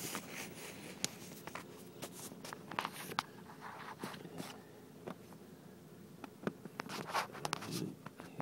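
Faint scratchy rustling with scattered sharp clicks, irregular and close to the microphone.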